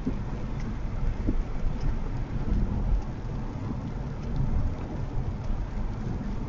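Steady rain and wet-road noise from a car driving in the rain: a low, rumbling wash with a few light taps.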